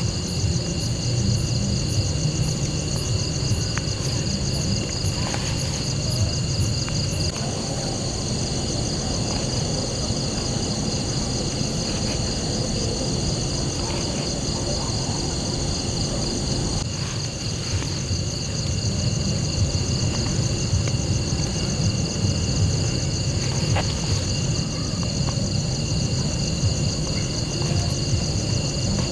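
Insects chirping in a steady outdoor chorus, several high trills layered at different pitches. A faster, higher ticking stops about seven seconds in. A steady low rumble runs underneath.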